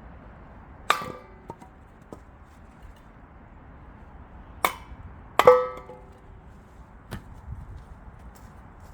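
Axe splitting chestnut firewood: a sharp chop about a second in and two more close together a little under a second apart near the middle, each with a short ring after it, with a few lighter knocks between.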